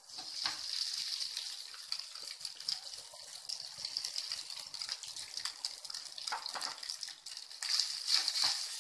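Hot oil with cumin seeds, green chillies and curry leaves sizzling and crackling as cooked rice is added and turned with a spatula. The sizzle swells briefly near the end.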